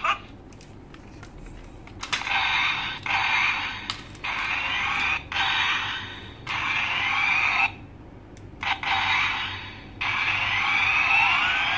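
Tinny electronic sound effects in a run of about seven bursts of roughly a second each, starting about two seconds in, with sliding tones running through them.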